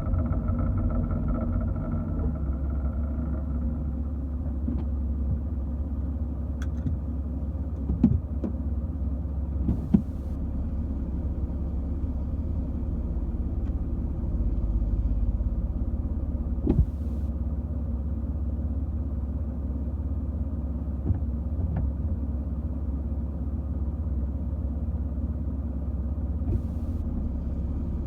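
Porsche Cayman 981 flat-six engine running steadily with a low hum, and several sharp clicks along the way. It is being recorded for a strange noise the owner cannot place.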